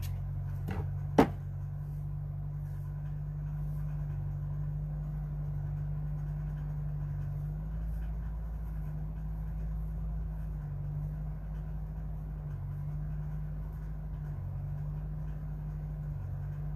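A low, steady background hum, with one sharp click about a second in.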